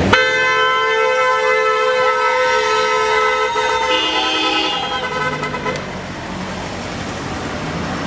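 Car horn sounding one long, steady blast of about four and a half seconds that starts abruptly: a driver honking in answer to a 'honk for Japan' appeal. A second horn tone overlaps near the end, and excited whoops from onlookers ride over it.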